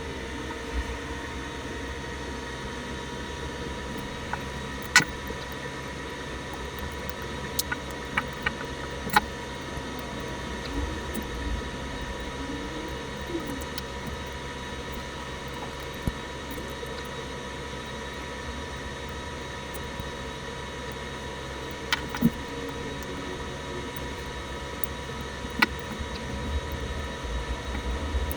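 Small tools clicking and tapping against the parts of a Casio analog wristwatch being taken apart: a few sharp, isolated clicks scattered through, over a steady low hum.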